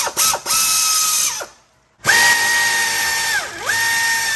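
Pneumatic air ratchet running in bursts, a steady whine with air hiss, backing out 5/16-inch bolts. Two short runs, a pause about a second and a half in, then a longer run whose pitch sags briefly past the middle and recovers.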